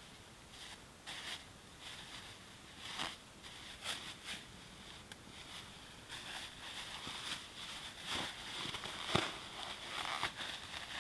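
Plastic bag crinkling and rustling as it is handled and a wrapped package is pulled out and unwrapped, with irregular crackles that grow busier in the second half. A single sharp tap stands out about nine seconds in.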